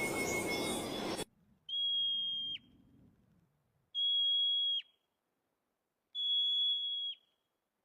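Three long, steady, high whistled notes, evenly spaced about two seconds apart, each ending in a quick downward slide in pitch. Before them a second of noisy sound cuts off abruptly.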